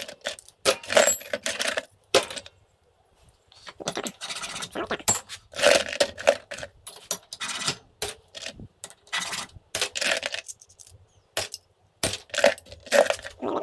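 Small pieces of scrap metal clinking and clattering as they are handled and dropped onto other metal, many quick sharp metallic clinks with a short pause about two seconds in.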